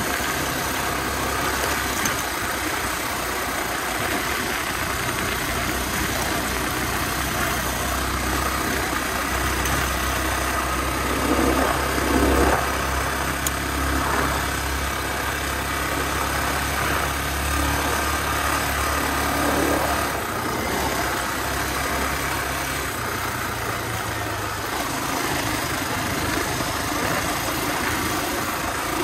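Honda XR250R's single-cylinder four-stroke engine running under way, with a steady low drone. The revs swell and fall back briefly about twelve seconds in, and again around twenty seconds.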